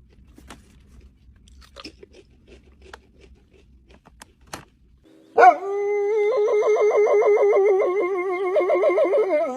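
Faint crunching and clicking, like a dog chewing. Then, about five seconds in, a dog starts a long, loud, wavering howl that holds one pitch for about four seconds.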